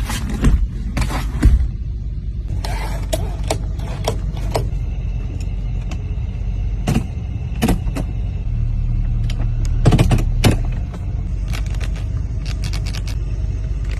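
Car engine running with a steady low rumble, with many sharp pops and clicks over it, the loudest about a second and a half in and again around ten seconds in.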